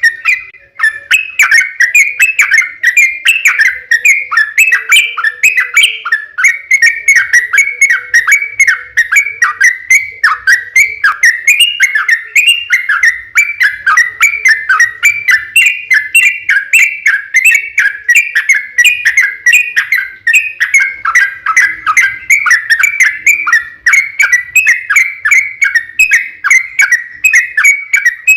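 Yellow-vented bulbul (trucukan) singing a long unbroken run of quick, rising and falling chattering notes, several a second without pause. The recording is loud.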